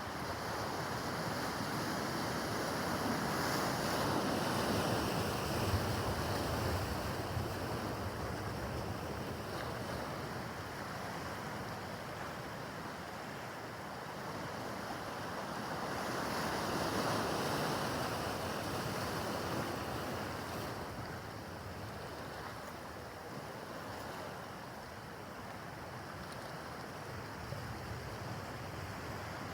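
Rough harbor water washing in waves, swelling louder twice, with wind on the microphone.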